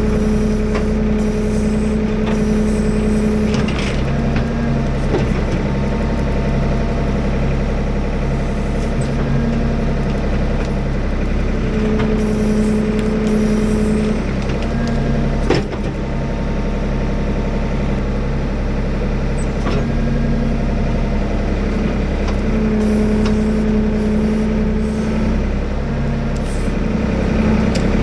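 Old Ford 555 backhoe running while it digs with the backhoe boom and bucket, a steady engine rumble throughout. A droning tone rises over it in three stretches of two or three seconds, at the start, about twelve seconds in and about twenty-three seconds in, as the hydraulics work under load. One sharp knock about fifteen and a half seconds in.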